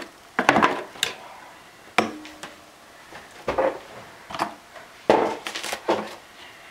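Unboxed camera accessories and packaging being handled and set down: a series of irregular knocks, clicks and rustles, about a dozen in all.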